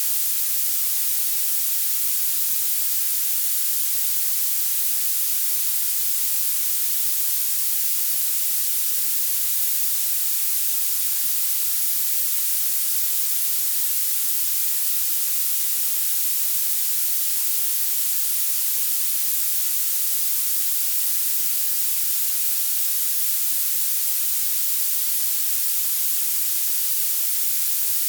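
Violet noise: a steady, unchanging synthetic hiss that is thin and very high, strongest at the top with almost nothing in the lows.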